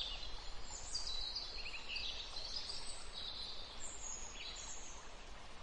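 Several small birds singing and chirping, high-pitched phrases overlapping one another, over a steady outdoor hiss.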